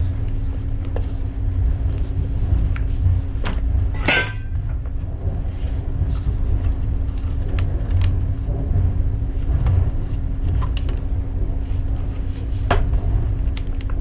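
Scattered clicks and knocks of hard objects being handled, the sharpest about four seconds in, over a steady low rumble and a constant hum.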